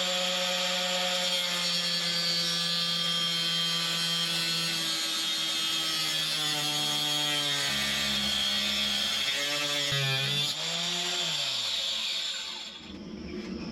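Angle grinder with a cut-off disc cutting through a seized steel bolt: a steady motor whine with a harsh hiss of grinding metal. The motor's pitch sags and wavers under load in the second half, then winds down and stops near the end.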